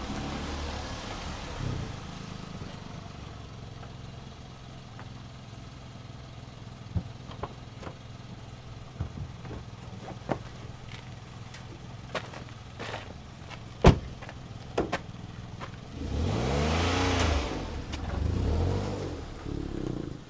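Small hatchback's engine running at idle, with scattered clicks and one louder knock like a car door shutting. About four seconds from the end the engine revs up and away twice as the car pulls off, its pitch rising and falling each time.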